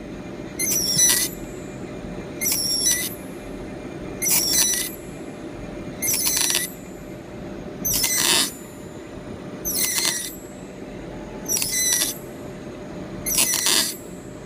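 CNC milling cutter squealing as it cuts rib grooves into a steel rebar-rolling roll: a short high-pitched squeal about every two seconds, one per cutting pass, over a steady machine hum.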